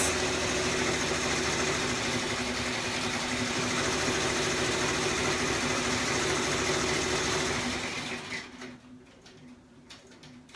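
Embroidery machine stitching out a design, a steady mechanical running hum, which stops about eight seconds in, leaving only a few faint clicks.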